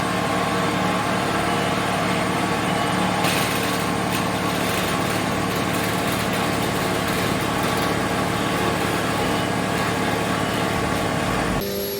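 CNC milling machine running steadily, a constant mechanical drone with a few held tones, changing abruptly near the end.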